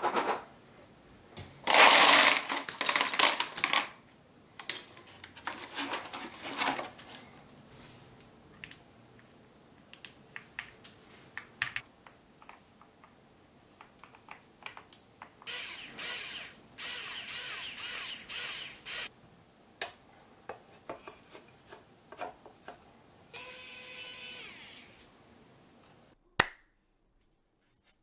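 Custom mechanical keyboard being assembled by hand: switches and case parts clicking, snapping and clattering, densest about two seconds in. There are a few stretches of steady whirring noise, the last, near the end, with a small motor's whine.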